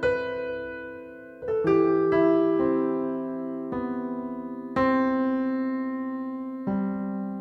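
Slow, sparse solo piano music: single notes and soft chords struck about every one to two seconds and left to ring and fade.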